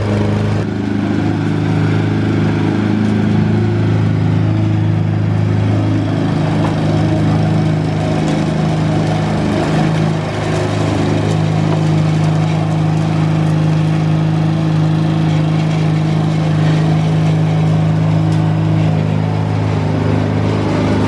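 Walk-behind lawn mower engine running steadily under load as it cuts grass, a continuous low hum.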